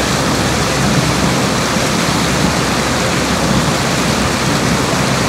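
Steady loud rush of wind buffeting the microphone and water rushing and splashing along the hull of a small aluminum jon boat running at about 8 mph through choppy water, with a faint low hum underneath.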